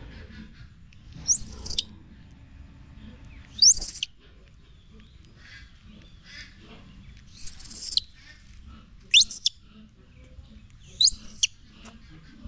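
Baby monkey crying with five short, very high-pitched squeals, each sweeping up and back down, spaced a second or two apart.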